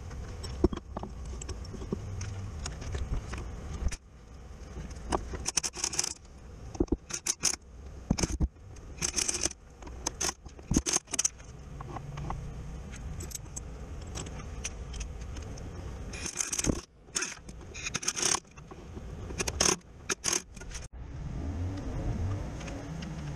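Metal hand tools clinking and scraping in short, irregular bursts, over a steady low rumble.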